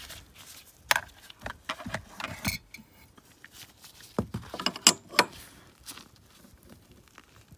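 Metal spanners clicking and scraping on a strut brace mounting nut as it is tightened, a scattering of sharp metallic taps.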